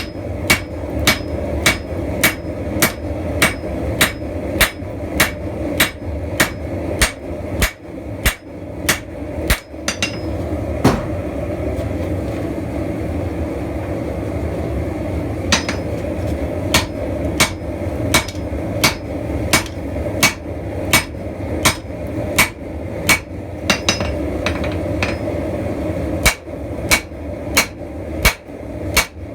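Blacksmith's hammer striking steel on an anvil, about two sharp ringing blows a second. The blows come in runs, broken by a pause of several seconds around the middle and a shorter one near the end, over a steady low rush.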